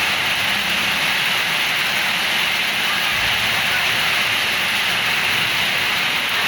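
Heavy rain falling in strong wind: a loud, steady, even wash of noise with no breaks.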